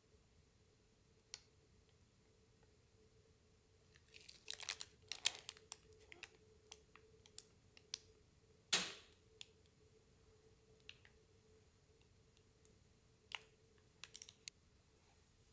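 Salad dressing squeezed from a plastic piping bag onto bread dough: scattered small crackles and clicks, starting about four seconds in, with the loudest near five and nine seconds in, over a faint steady hum.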